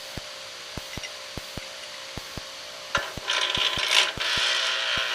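A pedestal grinder running with a steady hum and regular paired clicks. About three seconds in, a high-speed steel lathe threading tool bit is pressed against the grinding wheel in its fixture, and a loud, gritty grinding noise takes over.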